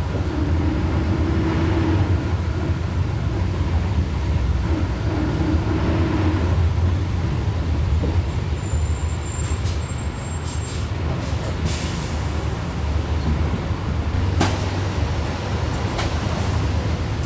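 Volksbus 17.230 OD bus heard on board: the diesel engine runs at low revs with a steady rumble, and the gearbox growl comes and goes twice early on. A few short hisses and clicks come in the second half.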